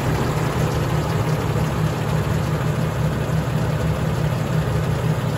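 Engine of a 2020 Freightliner M2 106 medium-duty truck idling steadily.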